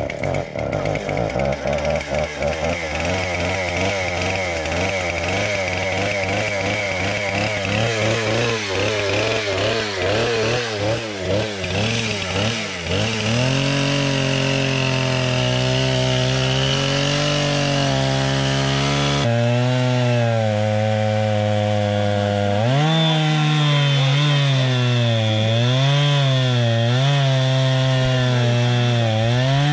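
Two-stroke gas chainsaw cutting through a fallen aspen trunk, the engine speed sagging and rising as the chain bites into the wood.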